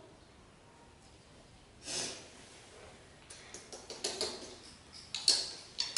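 Quiet room with one short breathy puff about two seconds in, then a run of small clicks and rustles that grows busier toward the end.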